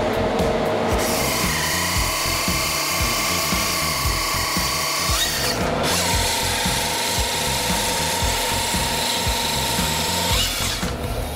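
Hydraulic grapple saw on a Bobcat compact track loader sawing through a log: a steady high whine from the chain. It runs in two long stretches, broken by a short gap about five and a half seconds in, and stops near the end.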